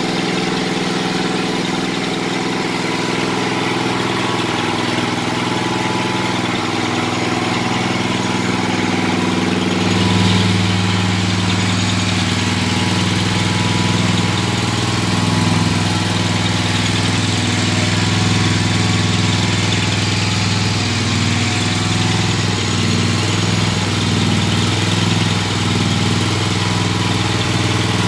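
Gravely Pro 1336 mower's Kawasaki engine idling steadily on a freshly fitted carburetor. About ten seconds in, its note gets louder and stays up. It runs with no air cleaner fitted and an air leak at the carburetor, which lacks its mounting bolts.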